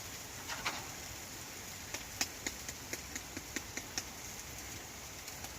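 Food frying in a pan on a camping stove: a steady sizzle with scattered sharp pops and clicks, most of them between about two and four and a half seconds in.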